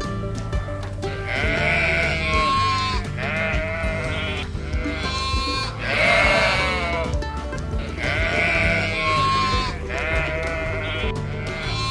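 Sheep bleating again and again, a wavering call every second or two, over background music.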